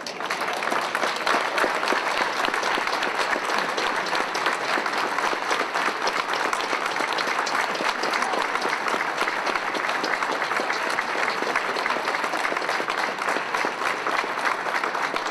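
Large audience applauding, starting abruptly and then going on steadily as dense, rapid clapping.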